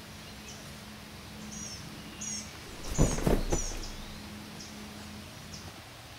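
Woodland ambience with small birds chirping in short high phrases, over a faint low hum. About three seconds in comes a brief cluster of thuds and rustling.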